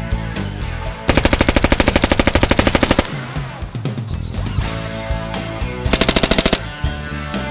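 Two bursts of fully automatic submachine-gun fire over background music: a rapid burst of about two seconds beginning about a second in, and a shorter burst near the end from a Thompson M1A1 in .45 ACP.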